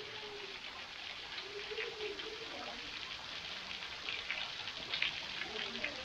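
A thin trickle of water dripping and splashing off a rock overhang onto the stone below: a small waterfall with very little flow, heard as many small, irregular drips over a soft hiss, more of them in the second half.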